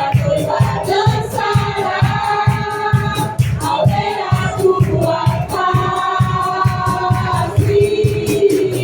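Worship band playing with a group of voices singing sustained lines over a steady drum beat.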